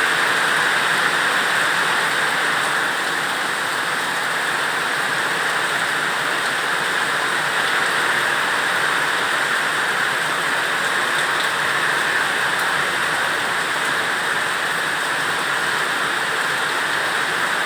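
Steady rain, an even unbroken hiss with no single drops standing out.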